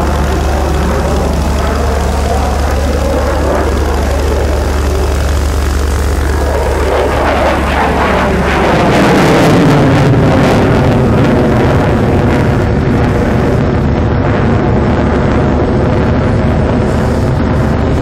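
F-16 fighter's single jet engine running in afterburner during a display pass, a continuous loud jet rumble. It swells to its loudest about ten seconds in as the jet passes, the pitch sweeping with the pass.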